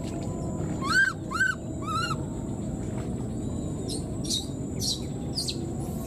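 Newborn baby monkey calling for its mother: three short arched cries in quick succession about a second in, then a run of five or so thin, high, falling chirps near the end, over steady background noise.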